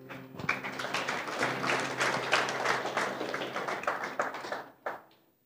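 Congregation applauding: a crowd's clapping that swells about half a second in and dies away near the end.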